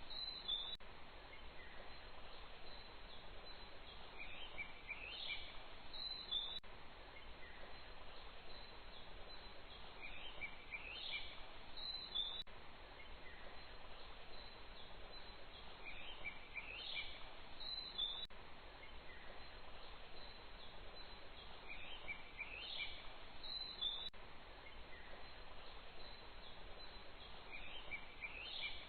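Faint looped outdoor ambience: a steady background hiss with a short run of bird chirps rising in pitch, repeating about every six seconds.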